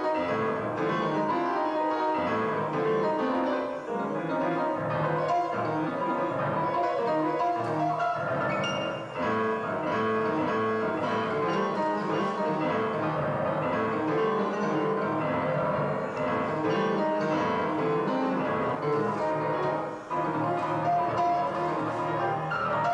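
Background music: piano playing continuously, with many notes moving over one another.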